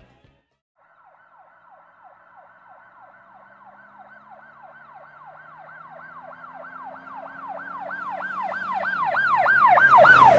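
Emergency vehicle siren in a rapid yelp, sweeping up and down about four times a second. It starts about a second in and grows steadily louder toward the end.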